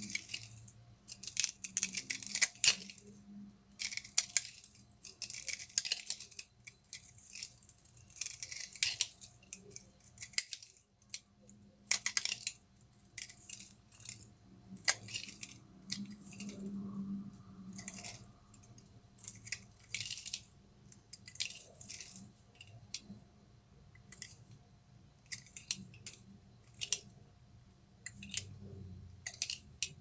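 A bar of soap scored into small cubes being scraped and crumbled apart with a carving tool, the cubes and shavings breaking off in repeated crisp crackling crunches in short bursts, with a pause of about a second near the middle.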